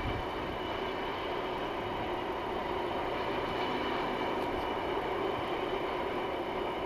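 Freight train of open box wagons rolling past on the railway line, a steady rolling rumble and rattle of wheels on rail. The tail of the train passes near the end.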